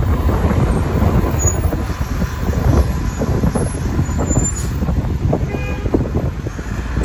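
Fire engine's diesel engine running as the truck drives past and pulls away, under low wind rumble on the microphone.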